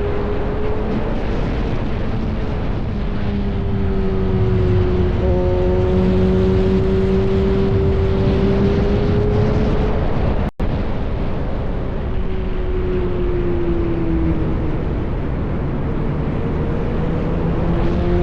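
Yamaha R1 inline-four with an SC Project exhaust, running at steady cruising revs over wind rush. The sound cuts out for an instant a little past halfway. The engine note then eases down and picks up again near the end.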